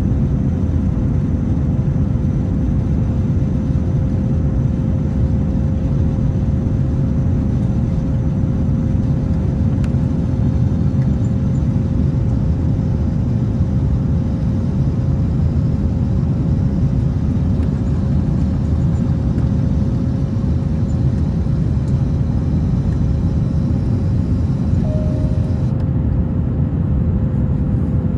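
Steady cabin roar of an Airbus A350-900 in flight, from its Rolls-Royce Trent XWB engines and the airflow, heard from a window seat over the wing, with a steady tone running through it.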